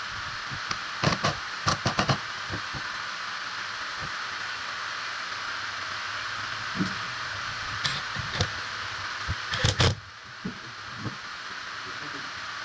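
A steady hiss with clusters of sharp knocks and clicks: several about a second in, a few more near eight seconds, and the loudest burst just before ten seconds.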